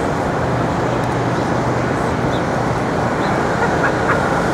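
Steady city street traffic noise with a constant engine hum, and a few faint short chirps in the second half.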